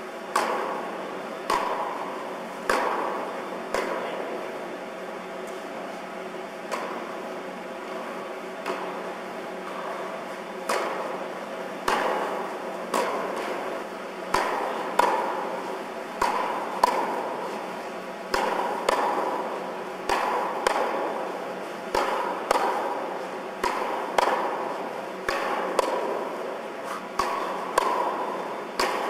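Tennis balls struck by rackets, sharp pops each followed by a long hall echo, with ball bounces between. The hits come sparsely at first, then about once a second in a steady rally.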